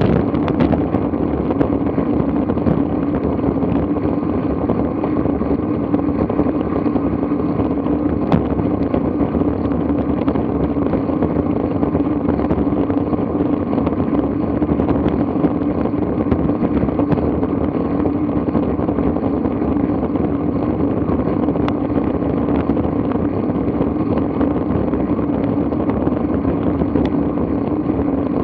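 Steady wind rush on a bicycle-mounted camera's microphone while riding, mixed with the hum of the bike's tyres rolling on asphalt, with a few faint ticks from the road.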